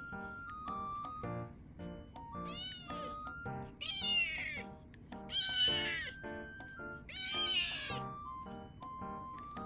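Orange tabby kitten meowing four times, crying to be let out of its cage, each meow sliding down in pitch at the end.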